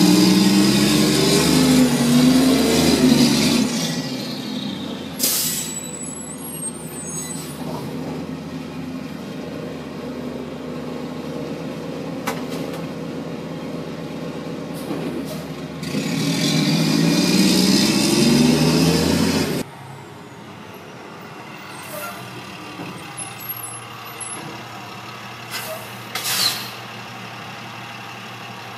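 Diesel engine of a rear-loading garbage truck revving as it pulls up, a short air-brake hiss about five seconds in, then idling, and revving again for a few seconds later on. After that, a quieter idling truck engine with a few light knocks.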